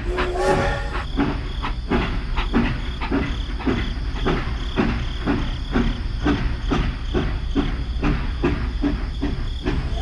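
Toy steam locomotive's sound effect: a short whistle-like toot at the start, then rhythmic steam chuffing about three times a second over a steady low hum.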